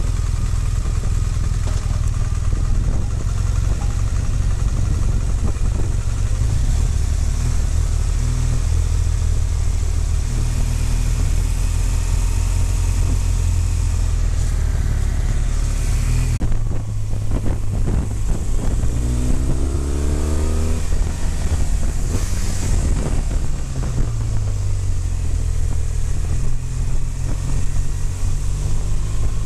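BMW motorcycle engine running at low road speed, heard from the rider's seat with wind on the microphone. A little past halfway the engine note changes, and a few seconds later a note rises in pitch as the bike picks up speed.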